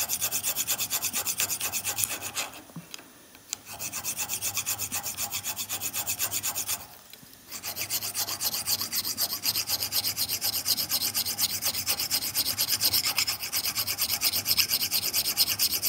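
Small hand file rasping quickly back and forth on a steel electric-motor shaft clamped in a vise, cutting a flat for the sprocket to slide onto. About five strokes a second, with two short pauses about three and seven seconds in.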